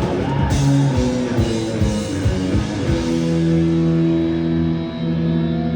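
Live rock band with electric guitars and drum kit playing the final bars of a song, then holding a sustained chord that rings out from about three seconds in.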